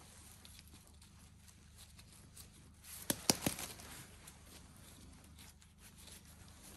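Flower pot of potting soil being shaken and knocked to settle the soil around a camellia's roots: faint rustling, with a quick run of several sharp knocks about three seconds in.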